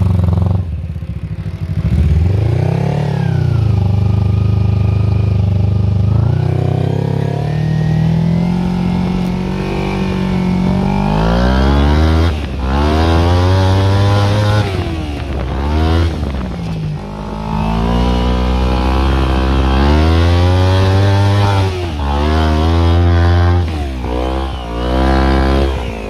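Small petrol engine of a homemade go-kart running and being revved up and down repeatedly. There are several quick blips of the throttle in the second half.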